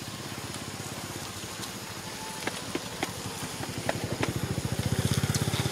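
A small engine running with a fast, steady putter, growing louder over the last couple of seconds, with a few sharp clicks over it.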